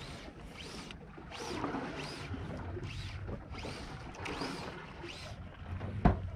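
Sea water sloshing and lapping against the side of a small fishing boat, in a swish roughly every second, over a low rumble. A single sharp knock comes about six seconds in.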